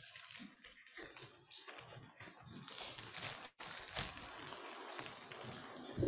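Close rustling and handling noises at the altar microphone, uneven and crackly, ending in a dull thump as a large white cloth is lifted over the altar.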